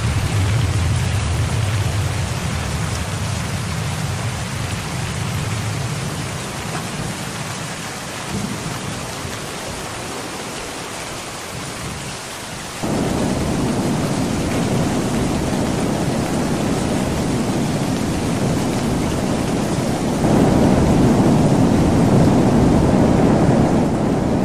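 Gale-force typhoon wind buffeting the microphone over heavy surf breaking on rocks, a loud, even noise. It steps up abruptly about halfway through and again near the end.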